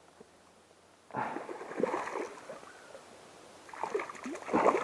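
Water splashing and sloshing around a just-hooked smallmouth bass being brought in. It starts about a second in, dies down, and picks up again near the end.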